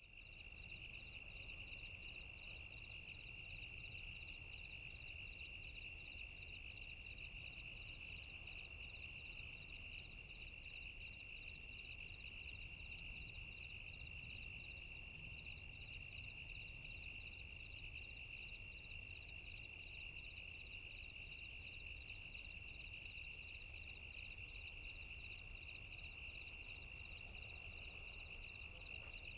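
A chorus of crickets chirping steadily, several insects at different pitches, one of them pulsing in short repeated trills.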